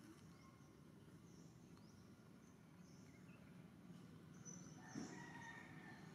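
Near silence: faint outdoor ambience with soft, high bird chirps here and there, and a brief faint call with a click about five seconds in.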